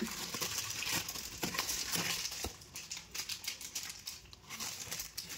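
Brown paper takeaway bag crinkling and rustling as it is handled and opened by hand, the crackling busiest in the first three seconds and thinning after.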